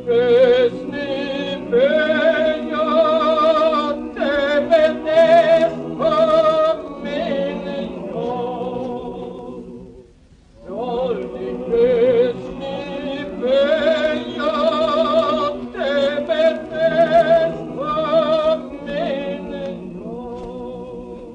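Male chorus recorded on a 78 rpm record, singing a slow Macedonian song, with a solo tenor voice and strong vibrato carried over sustained lower parts. It comes in two long phrases with a brief break about ten seconds in.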